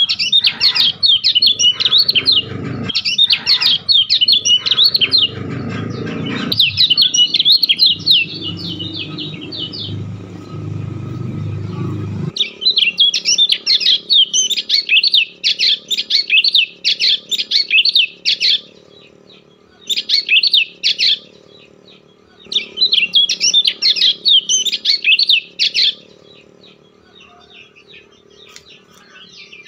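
A bird chirping in loud, fast, rapid runs a few seconds long, with short pauses between them, fading to faint near the end. For the first twelve seconds a low rumble runs underneath and then stops abruptly.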